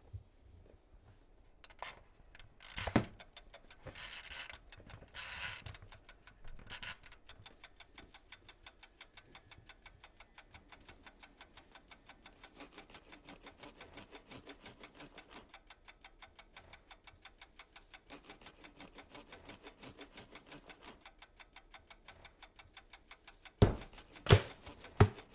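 A toaster's clockwork timer ticking steadily after its dial is turned, with a few knocks from handling it in the first seconds. Near the end, loud drum and tambourine hits come in.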